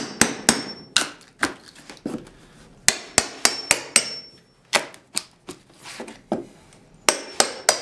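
Small hammer striking in quick runs of sharp taps with short pauses between, chipping old floor covering up off a wooden plank subfloor. Some taps carry a brief metallic ring.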